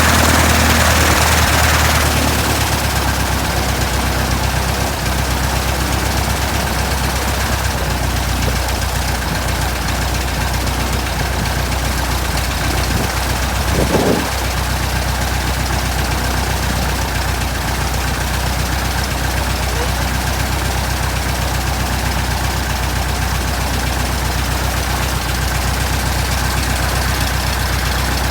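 Restored 1967 Citabria's four-cylinder horizontally opposed aircraft engine running, faster for the first couple of seconds, then settling to a steady idle. A brief burst of noise cuts in about halfway through.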